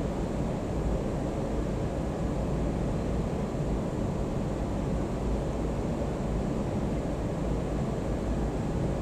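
Steady low rumbling background noise, even throughout, with no distinct sounds standing out.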